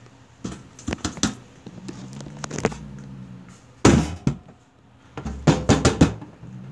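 A trapped calico cat growling low and steadily, the growl of a frightened, upset cat. It is broken by several sudden sharp knocks or spits, the loudest about four seconds in and a quick cluster near six seconds.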